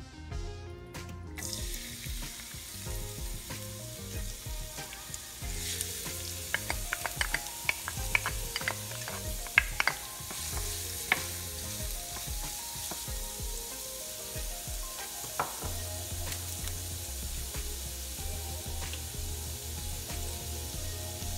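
Chopped garlic sizzling in hot olive oil in a nonstick pan, the steady hiss setting in about a second and a half in. A wooden spatula stirs it, tapping and scraping the pan in a run of sharp clicks from about six to eleven seconds in.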